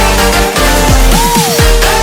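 Electronic dance music with a steady beat and synth sweeps that fall and then rise about halfway through.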